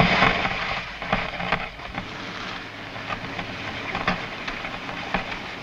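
An old open roadster being pushed and rolling over snow: a steady crackling, crunching noise with many small clicks, loudest in the first second.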